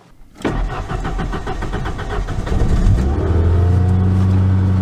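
1991 Ford Ranger's 2.3-litre four-cylinder engine cranking on the starter for about two seconds, then catching with a rise in revs and settling into a steady idle. It is a hard first start, which the owner thinks may be crud in the injectors.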